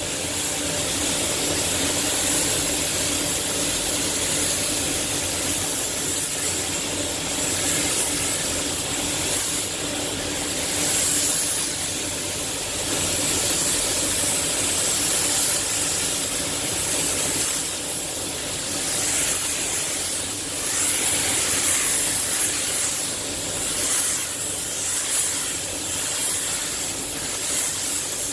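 Compressed-air paint spray gun hissing in repeated spray passes that swell and ease every few seconds, over a steady machine hum.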